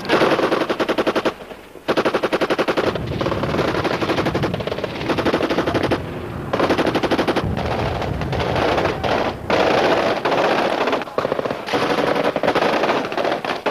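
Automatic weapons firing in several long bursts of rapid shots, with short breaks between bursts.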